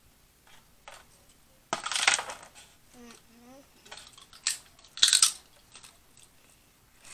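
Close-up eating and handling noise from a seafood boil over aluminium foil trays: two loud crackling bursts, about two seconds and five seconds in, with a brief faint hum between them.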